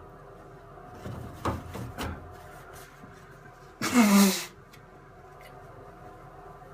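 A person sneezing once, loudly, about four seconds in, with a voiced sound that falls in pitch at the end. A few short, sharp, quieter sounds come a couple of seconds before it.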